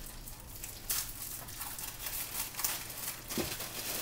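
Plastic packaging crinkling and rustling in irregular snatches as small items are picked out of bags and unwrapped.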